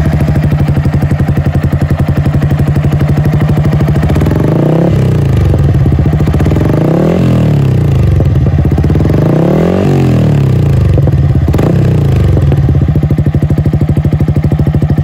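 Yamaha R15 V3's single-cylinder engine running through a Pavta Adventure twin-outlet aftermarket exhaust. It idles, is revved up and dropped back several times between about four and ten seconds in, then settles back to idle, with a full, dense bass note.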